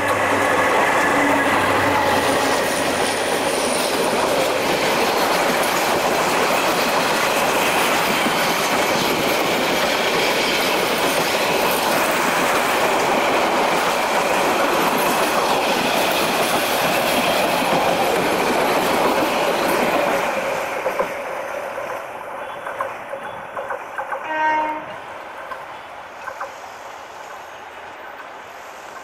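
Diesel-hauled passenger train running past at speed, its coaches' wheels loud and steady on the rails. The noise falls away about 20 seconds in as the train clears, leaving a few scattered knocks.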